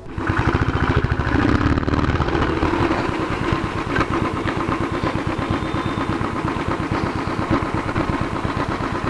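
Motorcycle engine running steadily while the bike is ridden, its exhaust beating in a fast, even rhythm.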